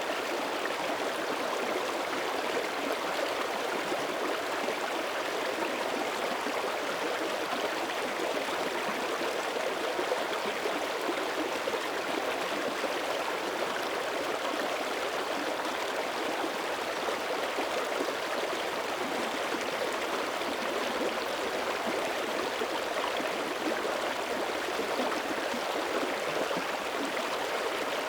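Small mountain creek running steadily over rocks, an even rushing and gurgling of flowing water.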